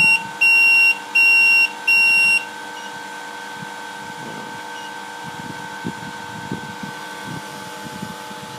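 Rework station's electronic buzzer giving four beeps, about half a second each, then a steady fan whine that runs on after the beeps stop.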